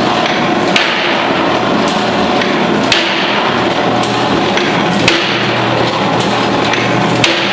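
Salt tablet press machine running: a steady dense mechanical clatter, with a sharp knock about every two seconds and fainter ticks in between.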